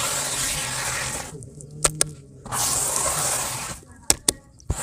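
Hands kneading and slopping thick wet grey dirt paste. Two long stretches of wet squishing, each about a second and a half, with a few sharp slaps between them.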